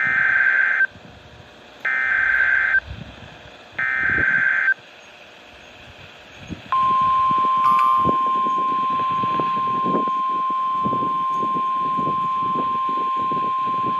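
NOAA Weather Radio Emergency Alert System activation: three identical bursts of SAME header data, each about a second long with a second's gap between them. A couple of seconds later a steady single-pitch 1050 Hz warning alert tone starts and holds, announcing a tornado warning.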